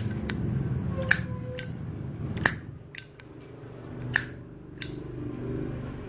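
Zippo lighter's hinged metal lid being flicked open and snapped shut, a run of sharp metallic clicks. The loudest come about two and a half and four seconds in.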